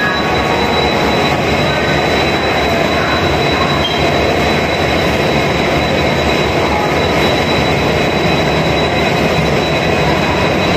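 WDP4D diesel locomotive running steadily while standing coupled to its train, an even mechanical noise with a thin high whine over it.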